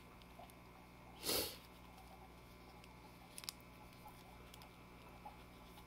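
Plastic parts of a Masters of the Universe Revelation Faker action figure being handled as its armor piece is fitted. There is a short scrape about a second in, two small sharp clicks a couple of seconds later, and faint light tapping of plastic against fingers.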